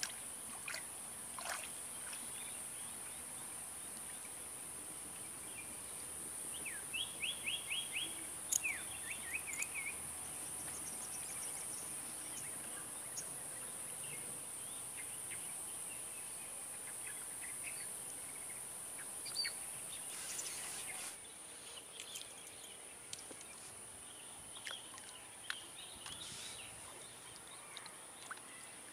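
Outdoor lakeside ambience with birds calling: a run of about six quick rising chirps about seven seconds in, then more scattered chirps and calls, over a steady high hiss. A few light clicks near the start.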